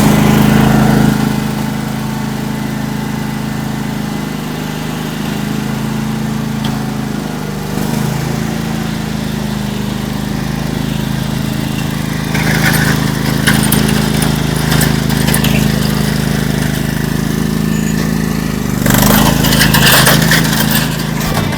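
Craftsman GT5000 garden tractor's V-twin engine running steadily, louder for about the first second. Twice, once about halfway through and again near the end, a louder rush of noise rides over the engine.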